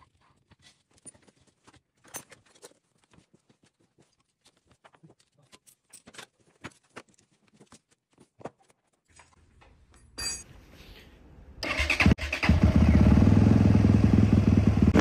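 Light clicks and taps of small carburetor parts being handled and fitted. About ten seconds in, a dirt bike engine gives a brief first burst, then catches a second or so later and runs loud and steady.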